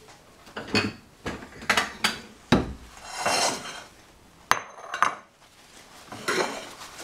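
Hot metal baking pan being taken out of an oven: a series of sharp clattering knocks, with one crisp ringing metal clank about four and a half seconds in.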